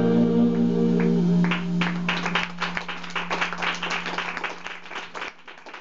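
A jazz quintet's final held chord from saxophones and double bass dies away about a second in. Audience applause follows and fades as the recording cuts off.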